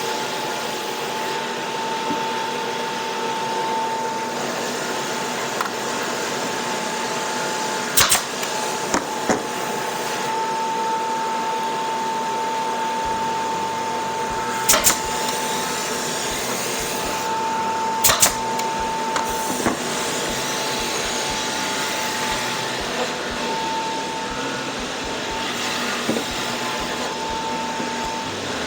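Steady whir of a power tool running, with three quick pairs of sharp snaps from a brad nailer tacking drawer-box parts together.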